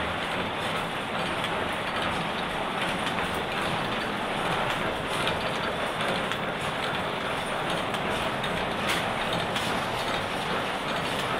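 Grass-mat weaving machines running: a steady, dense mechanical clatter of many quick clicks and knocks.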